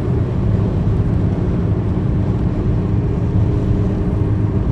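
Steady low rumble of a moving vehicle, with a faint steady hum over it.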